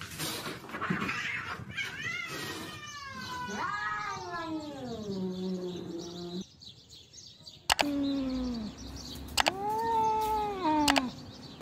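Domestic cats caterwauling: drawn-out, wavering yowls that slide up and down in pitch, the threat calls of rival cats squaring off to fight. There is a short lull past the middle, then longer yowls that rise and fall.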